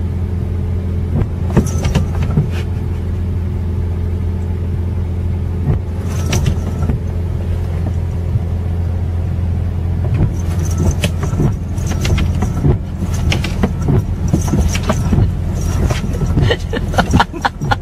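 Steady low hum of a car engine idling, heard from inside the car, with scattered light knocks and taps that come more often near the end.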